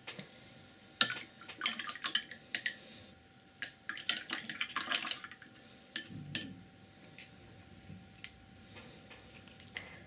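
A paintbrush being rinsed in a water jar, rattling and clinking against the jar in two quick clusters, with a dull knock after.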